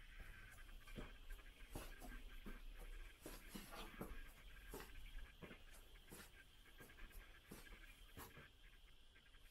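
Faint footsteps and phone-handling knocks of someone walking with the camera through a quiet flat, about two a second, over a steady low room hum.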